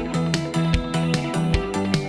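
Background music with a steady beat, about two and a half beats a second, over held notes.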